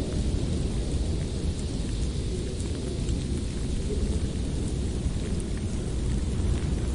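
Blizzard wind blowing steadily, a deep rumble with a higher hiss that eases in the middle.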